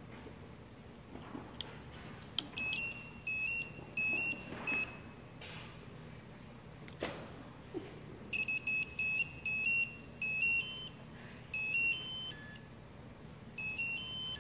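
Piezo buzzer on a small circuit board, driven by a microcontroller, beeping out a simple electronic song. It plays short, shrill notes in quick groups with pauses between them, starting about two and a half seconds in, and the pitch changes for a few notes near the end.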